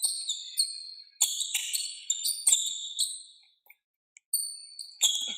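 Basketball sneakers squeaking on a hardwood court: a run of short, high squeaks, several falling in pitch, mixed with a few sharp knocks of the ball hitting the floor.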